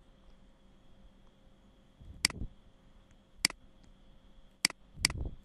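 Computer mouse button clicking four times, each a single sharp click, about a second apart, with the last two close together near the end. A faint steady hum runs underneath.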